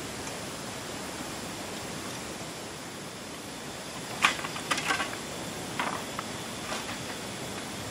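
Steady background hiss, then from about halfway through a run of short wooden clacks and knocks as a folding wooden camp table is opened out and set up.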